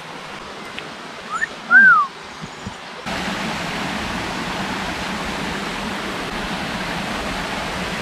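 Rushing water of a small forest waterfall and stream as a steady hiss, which jumps to a louder, even rush about three seconds in. A short rising chirp and a whistled note sound between one and two seconds in.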